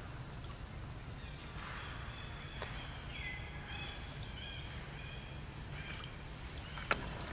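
Outdoor ambience: a steady low rumble under a thin high steady tone, with faint high-pitched animal chirps in the middle and a sharp click near the end.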